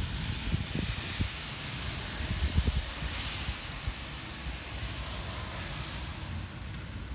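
Thunder rumbling and dying away after a nearby lightning strike, with a few low crackles, over a steady hiss of rain.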